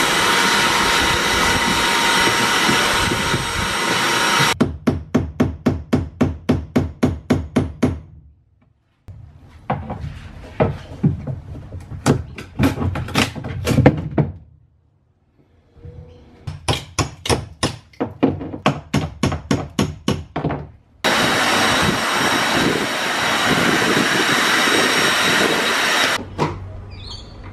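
A wet/dry shop vacuum running steadily, then three runs of rapid hammer blows, about four a second, as a chisel is driven into the boat's fibreglass, with short pauses between them; the vacuum starts again about three-quarters of the way through.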